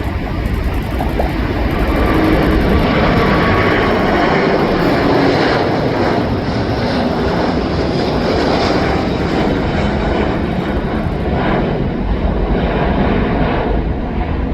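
Airbus A350's twin Rolls-Royce Trent XWB turbofans at takeoff thrust on departure, a loud, steady jet rumble that swells about two seconds in and eases slightly near the end.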